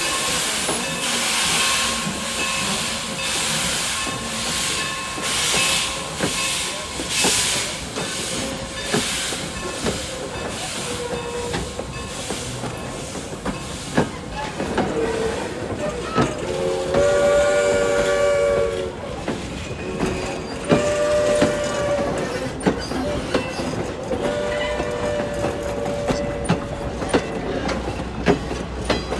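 Strasburg Rail Road steam locomotive pulling out of the station, its exhaust chuffing steadily a little more than once a second, fading out about nine seconds in. In the second half its steam whistle sounds three times, a chord of several notes, the last blast the longest, while the wooden passenger coaches roll past clicking over the rail joints.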